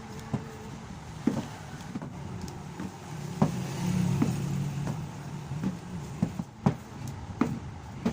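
Irregular sharp knocks and taps, roughly one a second, over a low steady hum that swells briefly midway.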